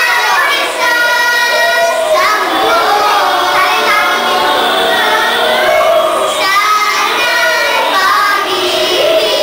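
A small group of young girls singing a song together.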